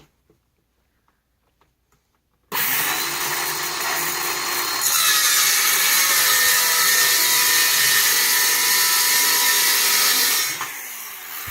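Handheld circular saw switched on about two and a half seconds in and spinning up. It then cuts through wood for about five seconds at its loudest, and is switched off near the end, winding down.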